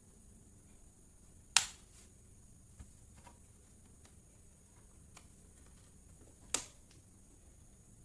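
Two sharp clicks about five seconds apart, with a few faint ticks between them: small hard parts of a laptop being handled and snapped together.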